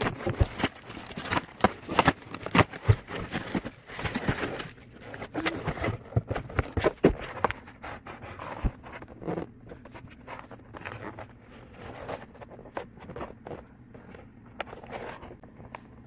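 A package being opened and unpacked by hand: a busy run of scrapes, crinkles and light knocks, dense for the first half and sparser after.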